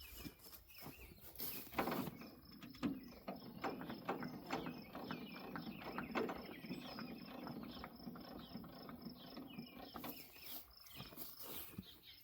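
A quick run of metallic clicks and knocks from hand work on a trailer's wheel, for about eight seconds from two seconds in, with insects chirping steadily behind.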